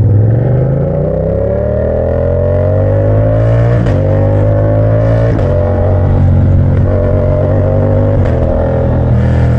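Yamaha MT-07 parallel-twin engine through a straight-pipe exhaust, accelerating hard with its pitch climbing for about four seconds. Two short breaks, at about four and five seconds in, mark gear changes, before it holds high revs with a brief dip near the end.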